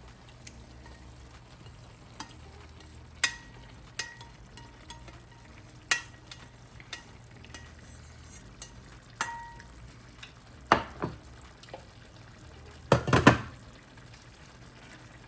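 Shrimp being stirred into sautéed cabbage in a skillet: a utensil knocks and scrapes against the pan in scattered strikes, some ringing briefly, with a louder run of knocks and scrapes near the end.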